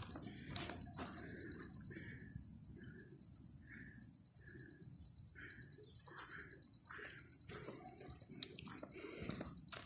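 Forest insects trilling in a steady high drone, with a row of short chirping notes between about two and five seconds in.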